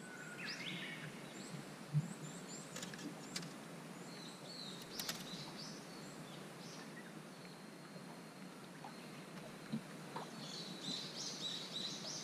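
Small birds chirping and twittering over quiet open-air background, the twittering busier near the end. A dull thump about two seconds in, a sharp click around five seconds and another small thump near ten seconds.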